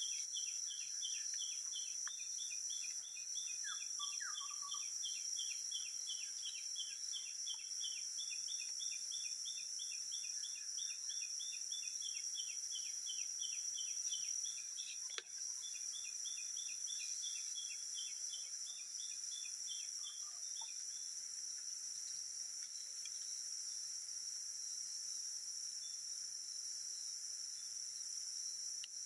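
Tropical forest insect chorus: a steady high-pitched drone of insects, with a fast, even run of chirps that stops about two-thirds of the way through. A single click is heard about halfway.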